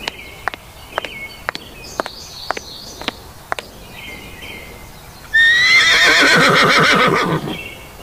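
Horse hooves clip-clopping, eight sharp steps about two a second, then a loud horse whinny of about two seconds starting a little after five seconds in, falling in pitch with a quavering pulse. Faint bird chirps sound behind.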